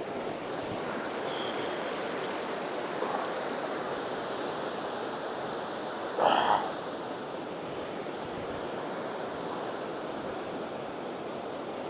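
Ocean surf breaking and washing up the beach, a steady rushing noise. About six seconds in, a brief sharper sound stands out over it.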